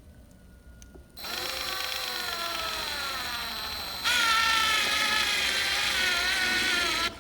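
Power drill with a 7/16 socket driving a lag screw into a wood stud. The motor whine starts about a second in and sinks in pitch as the screw bites. About four seconds in it jumps louder and higher, then stops suddenly near the end.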